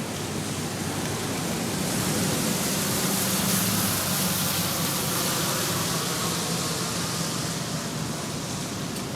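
Steady rain hissing on pavement while a car passes on the wet road, its tyre hiss and engine rumble swelling to a peak about three and a half seconds in and fading away.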